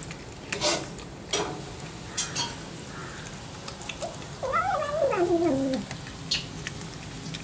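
Kitten chewing raw fish, with a series of sharp crunching clicks, then a single long wavering cat yowl about halfway through that falls steadily in pitch over about a second and a half.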